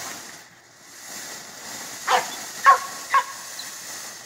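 A dog barks three times, about two seconds in and twice more within the next second, over the steady hiss of a ground fountain firework spraying sparks.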